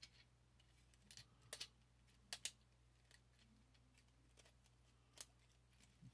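Faint, scattered plastic clicks and snaps from a Siege Ultra Magnus Transformers figure's parts being worked by hand during its transformation: several close together in the first two and a half seconds, then one more near the end.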